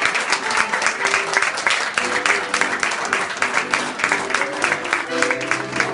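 Group applause, many hands clapping irregularly, with a few short held musical tones sounding over the clapping from about two seconds in.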